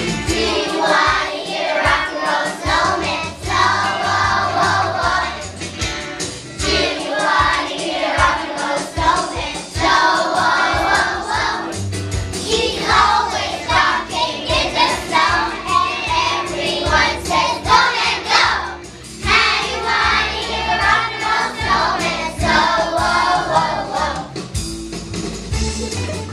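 A choir of young children singing a song together in phrases over steady instrumental accompaniment.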